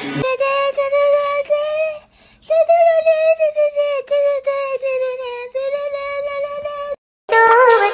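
A high-pitched voice holding long, slightly wavering notes with no accompaniment. It breaks off briefly about two seconds in and cuts out again just before the end.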